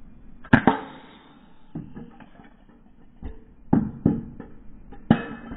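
Daisy Powerline 426 BB gun firing repeatedly at aerosol spray cans: about half a dozen sharp cracks of shots and BBs striking the metal cans, the loudest pair about half a second in with a brief ringing after. One can is knocked off its perch.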